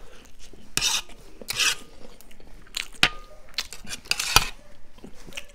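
Eating sounds from a plate of chowmein noodles: utensils clinking and scraping on the plate between short noisy mouthfuls, with one sharp clink about four seconds in.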